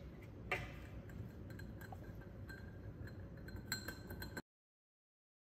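Light clinks and taps on a glass beaker as powder is tipped in from a plastic weigh boat, over a faint low hum. There is one sharp click about half a second in and a small cluster of clinks near the end. Then the sound cuts off abruptly to dead silence.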